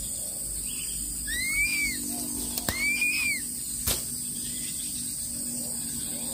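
Crested serpent eagle at the nest giving two arched, rising-and-falling whistles, about a second and a half apart, with a sharp click about four seconds in.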